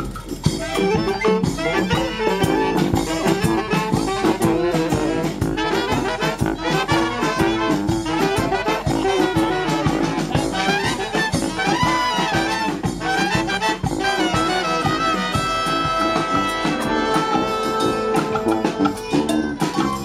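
Brass marching band playing live in the street: trumpets and saxophones over a steady drum beat.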